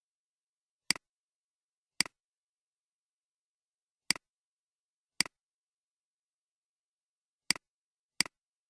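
Computer mouse clicking: six short clicks, each a quick press-and-release double tick, spaced about a second or two apart.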